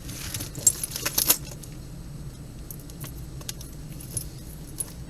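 Metal jewelry pieces jingling and clinking together as they are handled and sorted, with a cluster of clinks in the first second and a half, then occasional light clicks.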